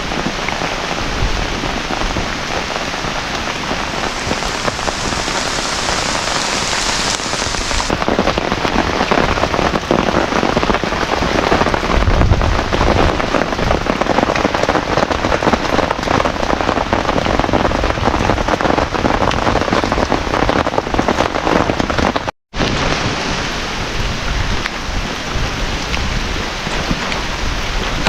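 Heavy rain falling steadily on a tarpaulin shelter. It cuts out briefly to silence about 22 seconds in.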